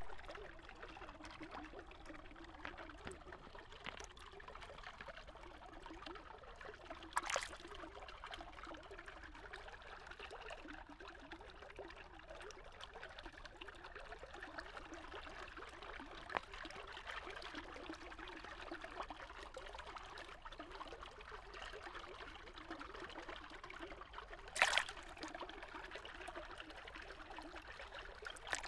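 Steady trickle of running water, broken by a sharp knock about seven seconds in and a louder one near the end, with a few smaller ticks between.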